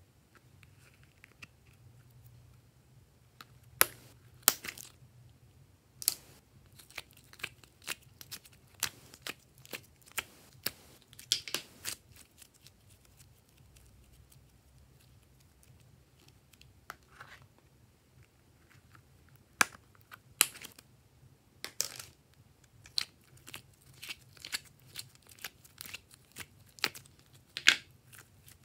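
Thick rainbow slime being peeled from its plastic container, stretched and squeezed by hand: irregular sticky clicks and pops, with a quieter spell about halfway through.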